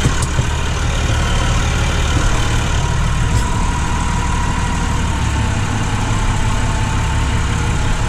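Massey Ferguson tractor's diesel engine running steadily at low revs, heard from inside the cab. A faint whine comes in about three seconds in and fades near the end.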